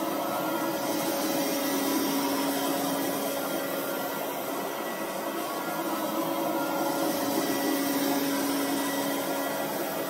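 Robot vacuum cleaner running: a steady motor hum with whirring brushes. It grows a little louder twice, about two seconds in and again near the end.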